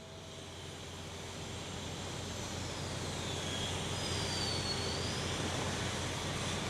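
Steady city traffic and construction-site noise that fades in over the first couple of seconds. Around the middle, a thin high squeal glides down, then a second one dips and rises.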